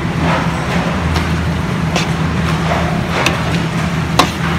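Steady low motor hum, with a few sharp taps or clinks at irregular intervals.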